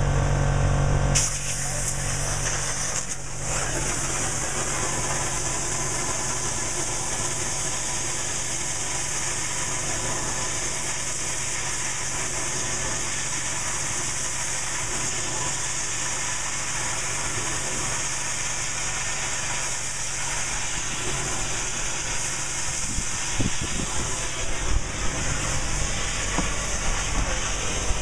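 Arcair arc cutting torch working on a railroad tie: about a second in, a loud, steady rushing hiss of the arc and gas jet takes over from a machine hum. Irregular crackles and pops grow in the last few seconds.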